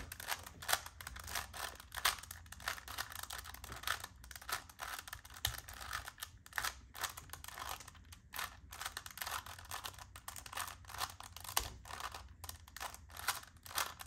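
A plastic 3x3 Rubik's Cube being turned quickly by hand, its layers clicking and clacking in rapid, irregular runs as it is scrambled.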